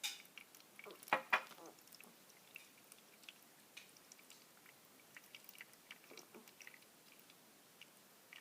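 Small plastic spoon and cups clicking and knocking as toy soda mixes are stirred. There is a sharp click at the start, two louder knocks just over a second in, then light scattered taps.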